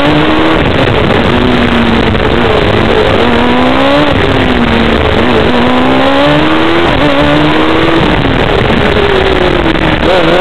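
Formula Student race car's engine heard from onboard, its note climbing in pitch several times and dropping back each time as the car accelerates and slows between cones, over a dense rushing noise.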